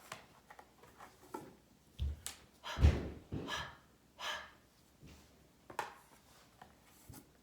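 A woman saying short, breathy phonetic letter sounds, several puffs of breath with no vowel after them, and a few soft knocks.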